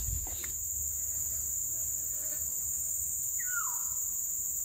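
Steady high-pitched drone of insects, with a single short note gliding downward about three and a half seconds in.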